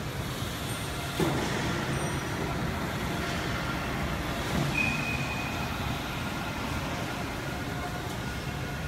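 VL550 vertical CNC machining center running with a steady mechanical noise. There is a sharp knock about a second in and a brief high whine around the middle.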